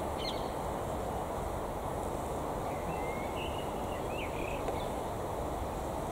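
Gusty wind blowing steadily across the microphone and through the surrounding trees, with a few faint high chirps in the middle.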